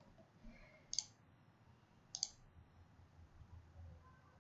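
Two sharp computer mouse-button clicks about a second apart, each a quick press-and-release double tick, over faint room hiss.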